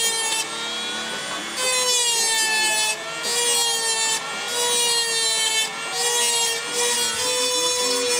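Handheld high-speed rotary tool with a small burr grinding out cracks in a fibreglass hull's gelcoat before an epoxy repair. A steady high whine that sags in pitch as the bit bites, with gritty grinding that comes and goes every second or so as the bit is pressed in and eased off.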